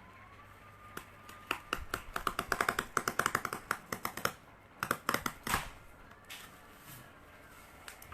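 A tool scratching a fold line along cardboard: a quick run of short scraping strokes for about three seconds, then a few more about five seconds in.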